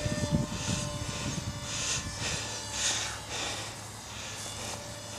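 Small electric motor and propeller of a radio-controlled model airplane in flight overhead, a steady whine in several tones. A high hiss swells and fades about once a second alongside it.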